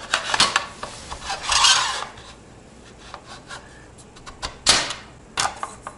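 The shell of a small ITX PC case sliding along its chassis, rubbing and scraping, with several sharp clicks and knocks as it is pushed into place.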